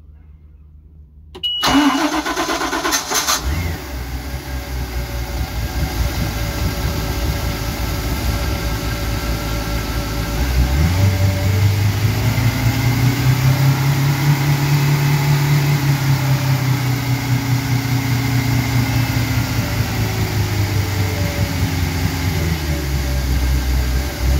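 Crownline 230 CCR's inboard sterndrive engine cranked on its starter, catching after about two seconds and settling into a steady idle. About ten seconds in the revs are raised, the pitch climbing and easing back, then it drops back to idle near the end.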